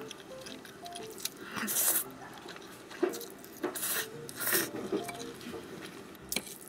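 Eating sounds at a table: cutlery clinking against dishes, with several short bursts of mouth noise from eating.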